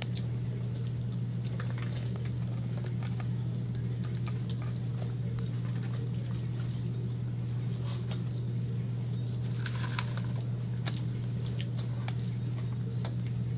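A person chewing French fries, with scattered small clicks and ticks from the mouth and from dipping into a sauce cup, and two sharper clicks about ten seconds in. A steady low hum sits under it all.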